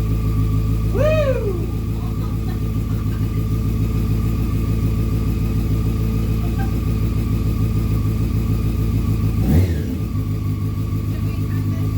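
2001 Honda CBR600F4i's fuel-injected inline-four engine running at idle on its first start after a valve adjustment, with one quick throttle blip that rises and falls in pitch about a second in, and a brief sharp change in the engine note near the end.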